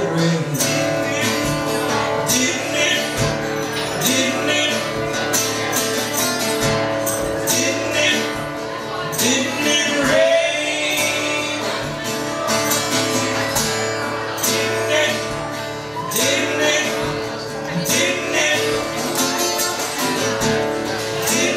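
Live acoustic duet: a man and a woman singing, accompanied by a strummed acoustic guitar.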